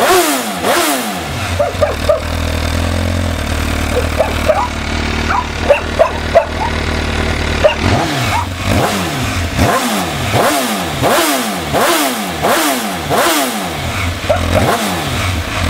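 MV Agusta F4 1078's inline-four on its stock exhaust: revs falling back to idle, a steady idle, then quick throttle blips over and over through the second half. A dog barks several times during the idle, the loudest moments here.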